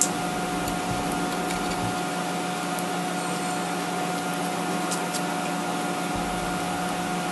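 Steady machine hum, like a ventilation fan or air-conditioning unit, holding several even tones. A few faint clicks come from small metal wheel-hub parts being handled, about three seconds in and again near five seconds.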